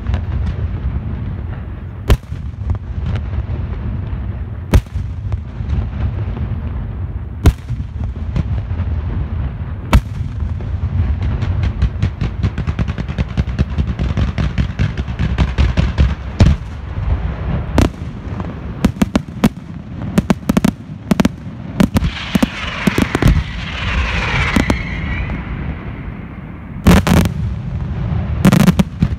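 Fireworks display: aerial shells bursting with sharp bangs over a continuous low rumble, at first a couple of seconds apart, then in a rapid string. A stretch of dense crackling follows, and two heavy bursts come near the end.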